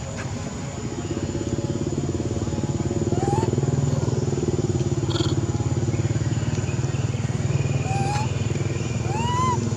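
A motor engine running steadily, getting louder about a second and a half in. A few short calls that rise and fall in pitch sound over it.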